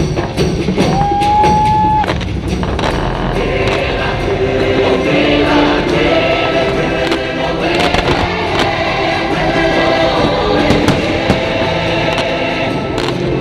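Fireworks show soundtrack: music with a choir singing, and a string of sharp cracks through it.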